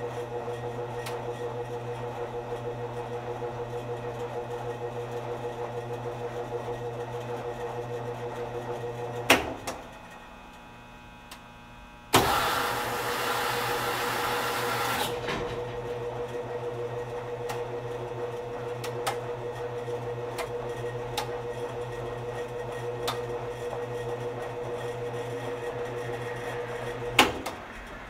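Laundromat machine running with a steady hum and a slight rhythmic pulse. It cuts out with a sharp click about nine seconds in; a few seconds later a loud click sets off about three seconds of loud hissing rush, then the hum runs again until another sharp click near the end.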